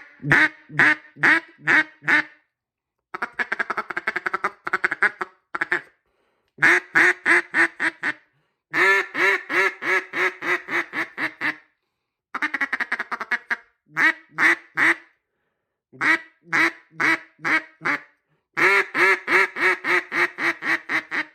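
Raspy duck call of mulberry burl wood with orange resin, blown in strings of quacks, each string a run of evenly spaced notes with short breaks between them. Several of the strings are faster, tighter runs of short notes.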